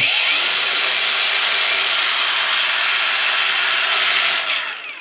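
LiBesta 21V cordless brushless angle grinder running free at full speed, a steady even whine with no suspicious or unpleasant noises. About four and a half seconds in the trigger is released and it winds down, the pitch falling as it coasts to a stop.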